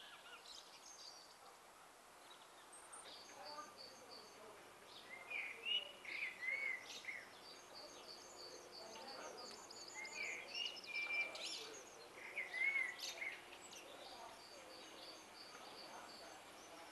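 Songbirds singing: quick series of high chirps and, three or four times, louder looping whistled phrases, over a faint steady background hiss.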